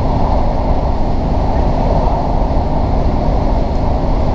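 Steady rumble of a diesel passenger train running along the line, heard from inside the carriage: wheels on the rails and the underfloor engine, with no change in pace.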